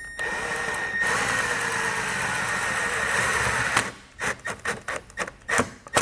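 Cordless drill-driver with a quarter-inch nut driver spinning a self-tapping screw into the vehicle's sheet-metal body. It runs steadily for nearly four seconds, then gives several short bursts as the screw is snugged down to clamp a ground wire's ring terminal.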